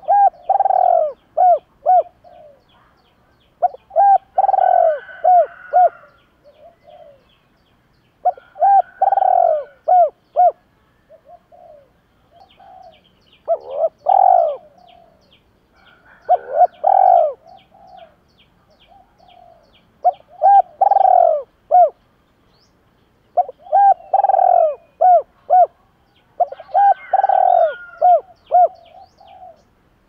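Spotted dove cooing: about eight phrases, one every three to four seconds, each a quick run of several low coo notes. Faint, rapid, high chirping ticks sound between some phrases.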